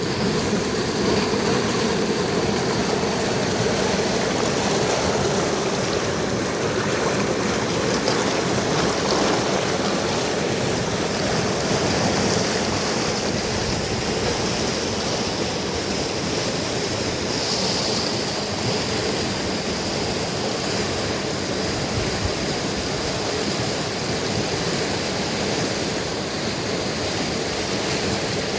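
A fast, turbulent mountain river rushing: a steady, loud wash of water with no letup.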